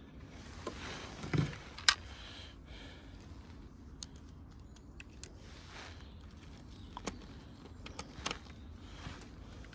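A scatter of small, sharp clicks and knocks, like metal parts being handled, with a heavier knock a little over a second in and the sharpest click about two seconds in.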